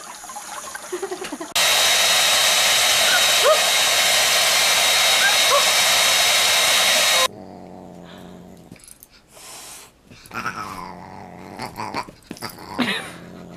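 A hair dryer runs loudly and steadily for about six seconds, switching on and off abruptly, with a dog's short rising cries heard over it. After it stops, the dog keeps crying and grumbling in scattered short bursts.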